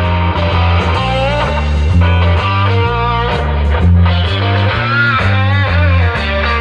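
Rock music with electric guitar and a heavy bass line in steady repeated notes, played loud through a home-built boombox's woofer and coaxial speakers, driven by a TPA3116D2 Bluetooth amplifier. Bent guitar notes stand out in the second half.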